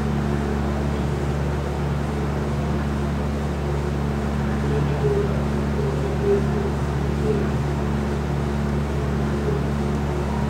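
Steady low hum from the stadium or recording, with faint distant crowd sounds over it, rising slightly a few times in the middle.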